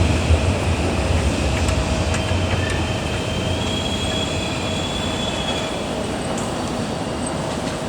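Electric limited express train running over the rails, its low rumble slowly fading, with a thin high wheel squeal midway.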